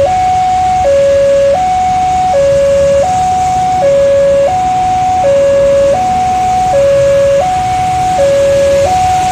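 Railway level-crossing warning alarm sounding its two-tone signal: a lower and a higher note alternate about every three-quarters of a second, the warning that a train is approaching with the barriers closed. A low rumble of road traffic runs underneath.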